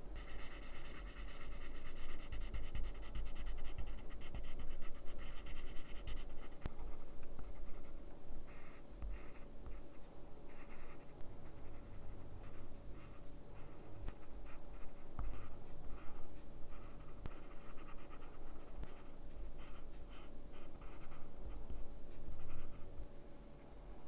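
Coloured pencils scratching across drawing paper. Dense, continuous shading strokes for about the first six seconds, then shorter separate strokes with small pauses between them.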